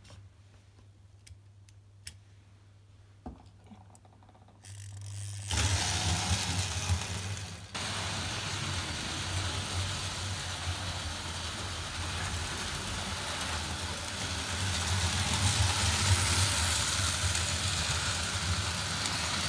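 Märklin 3005 BR 23 H0 model steam locomotive from 1956 starting off about five seconds in, then running steadily on the track with a continuous motor whir and wheel rattle. A low steady hum lies under it throughout, and a few light clicks come before it starts.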